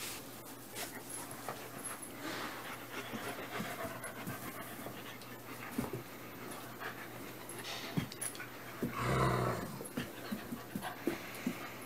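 German Shepherd puppy and adult German Shepherd panting while they play, with scattered small clicks and scuffles. About nine seconds in comes one short, louder vocal noise from one of the dogs.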